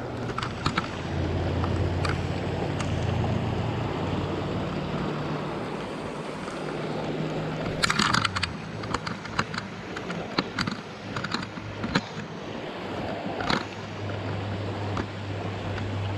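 Shallow mountain creek running fast over rocks, a steady rush of water. From about halfway, sharp clicks and crackles of brush and twigs as someone pushes through willows on foot.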